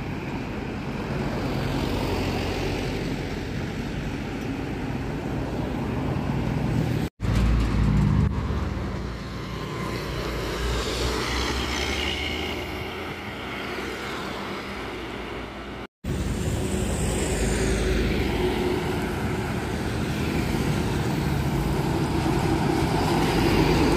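Road traffic: large buses and trucks driving past, with engine rumble and tyre noise. The sound drops out abruptly twice, about seven and sixteen seconds in, splitting it into three separate stretches.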